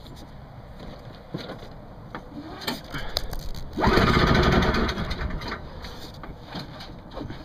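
Craftsman 5 hp two-stroke snowblower engine being pull-started: a loud burst of engine noise about four seconds in that lasts about a second, then drops back to a lower level with scattered clicks.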